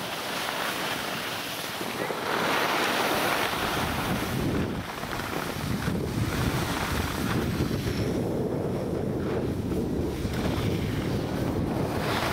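Wind rushing over the microphone of a moving skier's camera, mixed with the hiss and scrape of skis sliding over snow. The low rumble of the wind gets heavier about five seconds in.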